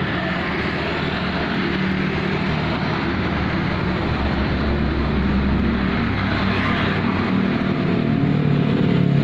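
Road traffic going by: the engine hum and tyre noise of passing vehicles, growing a little louder near the end as one comes closer.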